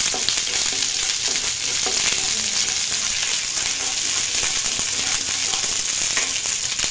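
Ginger-garlic paste and green chilli paste sizzling in hot oil in a non-stick pan as a wooden spatula stirs them: a steady frying hiss.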